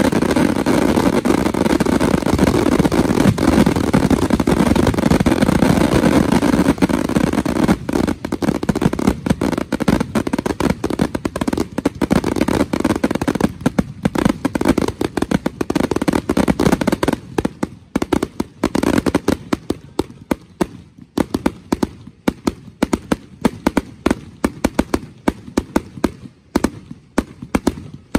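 Finale barrage of a fireworks display: a loud, dense, continuous run of shell bursts and crackle. About seventeen seconds in it breaks up into separate bangs that grow sparser toward the end.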